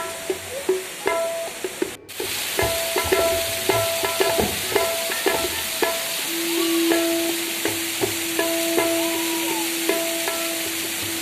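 Steady rushing hiss of a waterfall, with instrumental background music of held tones and short plucked notes over it. A brief dropout about two seconds in.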